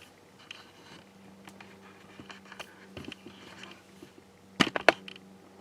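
Freshly built bare test-bench PC running with a low steady hum, with scattered light clicks and two sharp clicks close together near the end.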